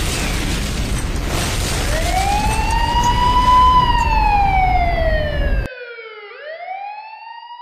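A loud, low explosion rumble that cuts off suddenly near the end. Over it, a siren winds up about two seconds in, glides slowly down, then winds up again once the rumble has stopped.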